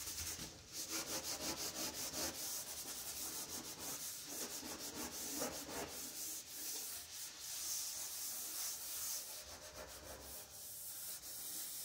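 Green scouring pad scrubbing the soapy metal pan under a stove's lifted cooktop, in quick back-and-forth strokes.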